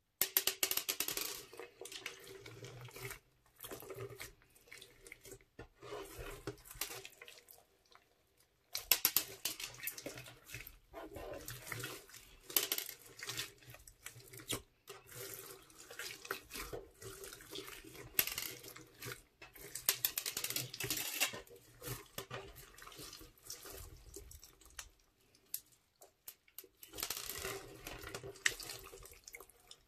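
Hands stretching, squeezing and kneading a large crunchy slime packed with foam beads: wet squishing and crunching in irregular bursts, with brief pauses between handfuls.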